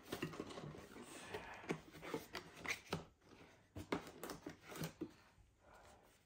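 Cardboard flaps of a boxed LEGO set being pulled open by hand: a run of light scrapes, creaks and taps that settles down about five seconds in.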